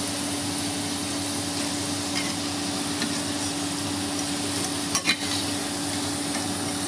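Potato fries deep-frying in hot oil, a steady sizzle, while a wire spider strainer and a perforated steel spoon scoop them out of the stainless steel pan. A steady low hum runs underneath, and a few light metal clinks come through, the loudest a quick double clink about five seconds in.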